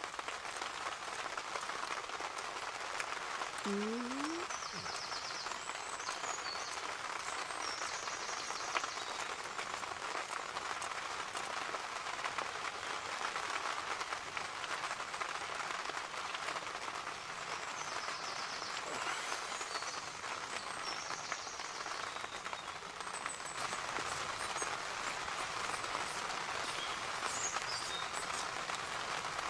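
Steady heavy rain falling, an even hiss through the whole stretch.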